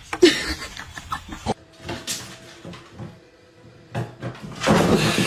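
Clicks and knocks, then a louder rattling scrape near the end, from the lid of a metal kitchen bin as a kitten climbs and scrambles on it.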